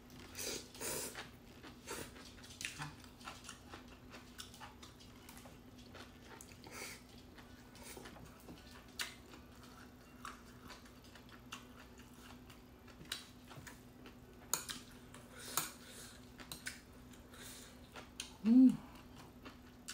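Noodles slurped about half a second in, then chewing and scattered clicks of metal chopsticks against the glass dish, over a faint steady hum. Near the end comes a brief voiced sound, the loudest moment.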